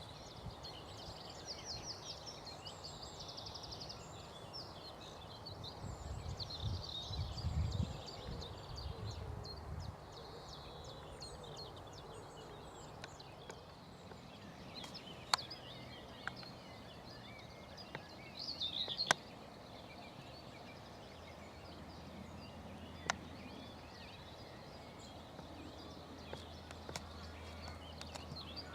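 Several songbirds singing and calling over an outdoor background. There is a low rumble around six to eight seconds in and a few sharp clicks later on.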